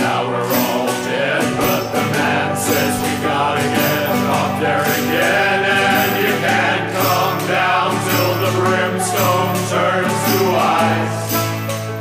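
Background music: a song played by a band, in a passage with no transcribed lyrics between sung lines.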